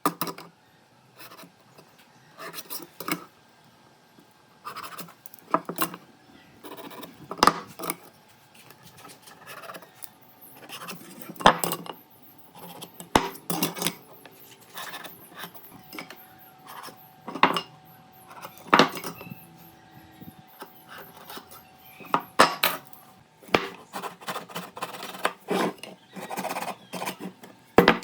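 Woodworking hand tools scraping and rasping on wood in irregular strokes, with several sharper knocks in between.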